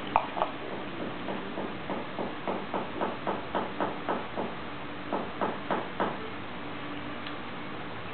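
A man's short, rhythmic mouth noises, about four a second in runs, as he works a mouthful of red wine while tasting it. A faint steady hum lies underneath.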